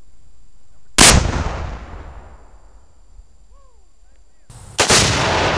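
Two loud explosions about four seconds apart, each trailing off in a long rumbling decay: exploding targets set off by gunfire, throwing up clouds of dust.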